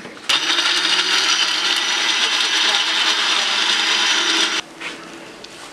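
Countertop blender running, blending a liquid mixture: it switches on about a third of a second in, runs steadily for about four seconds, then cuts off.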